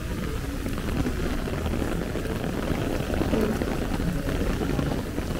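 Heavy rain falling steadily, pattering on an umbrella overhead and splashing on wet pavement, with a low rumble underneath.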